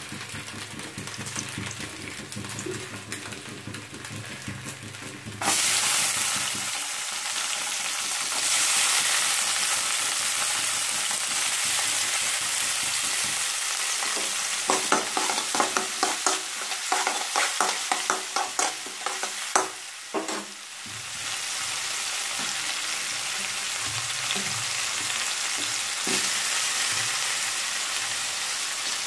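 Chopped onions frying in hot oil in a metal kadai: a loud sizzle starts suddenly about five seconds in and carries on. Midway there is a spell of quick clicks and scrapes as a spatula stirs the pan.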